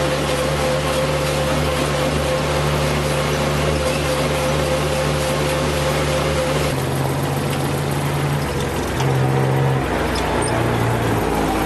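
Yanmar BV25 mini excavator's diesel engine running under load, with a steady high whine over it. About two-thirds of the way through the sound changes abruptly, and the engine note then steps up and down between levels as the machine works.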